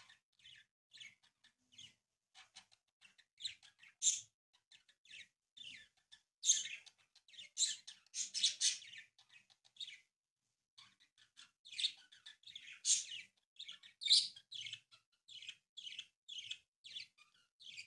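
A sheet of origami paper rustling and crinkling as it is folded and creased by hand: irregular short crackles with a brief pause about ten seconds in.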